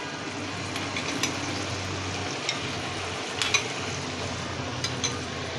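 Vegetables sizzling in a wok of hot stock while a sauce is poured in, with a metal spoon clinking against a glass bowl about five times as the sauce is scraped out.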